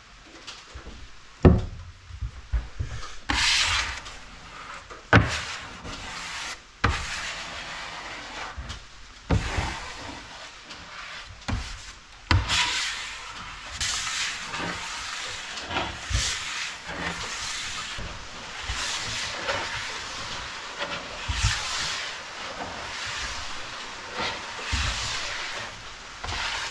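Plastic squeegee spreading oil across a sapele plywood panel in repeated scraping strokes, with sharp knocks now and then.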